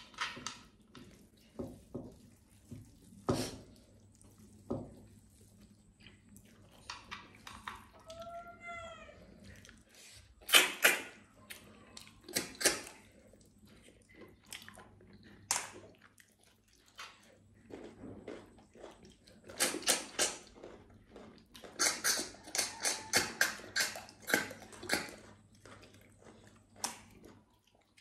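Wet, sharp slurps as cooked snails are sucked out of their shells by mouth, with chewing between. The slurps come singly, then in quick runs of several a second, the longest about twenty seconds in. A brief pitched sound is heard about eight seconds in.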